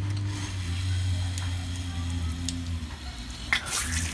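Water hissing from an outdoor hose spigot while a water balloon is filled at it, over a steady low hum. About three and a half seconds in, a louder rush of spraying water.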